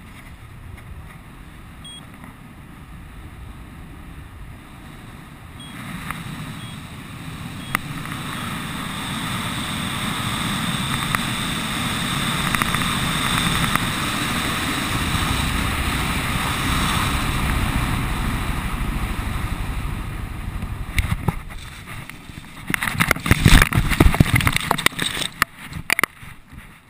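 Wind rushing over a helmet camera's microphone under a high-performance parachute canopy. It swells from about six seconds in as the canopy is dived through a turn and picks up speed, and holds loud for several seconds before easing. A few seconds before the end come loud, irregular buffeting and knocks.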